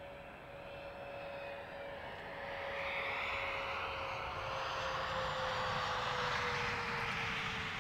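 Bombardier CRJ200 regional jet landing, its two rear-mounted turbofans giving a steady whine that slowly falls in pitch. A rushing jet noise builds under it as the aircraft comes close and is loudest near the end.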